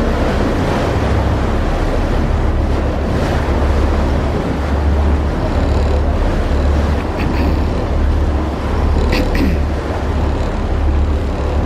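A Mersey ferry's engines running underway with a steady low rumble, under a haze of water and wind noise; a couple of brief clicks about nine seconds in.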